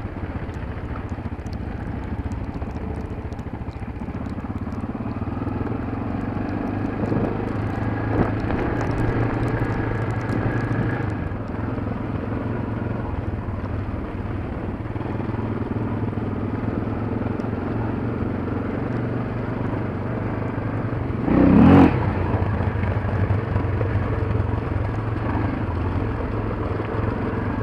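Trail motorbike engine running steadily under way on a rough, snowy track, with rumble and crackle from the ride. A short, much louder burst about 21 seconds in.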